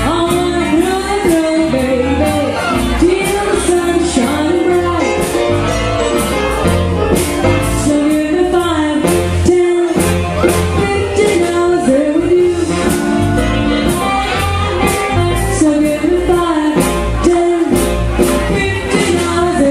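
Live jump blues band playing a swinging number: saxophone, electric guitar, keyboard, electric bass and drums, with a steady beat throughout.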